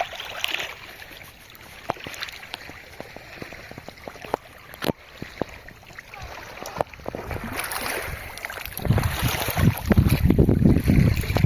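Wind buffeting the microphone, with scattered small clicks. The low wind rumble grows much stronger about nine seconds in.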